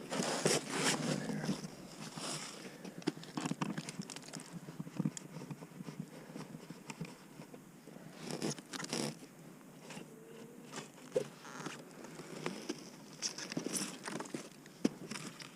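Scraping, crunching and rustling of hands working at an opened beehive, with a few sharper knocks about half a second in, around eight and a half seconds in, and near the end.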